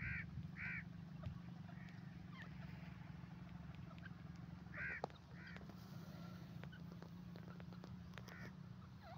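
Grey francolin giving short, faint calls: two near the start, two about five seconds in and one near the end, over a steady low hum.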